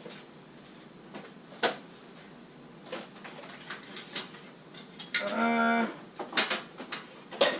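Cookware and kitchen cupboards being handled while a saucepan is looked for: scattered clicks and knocks. About five seconds in there is one short steady drone-like tone, lasting under a second.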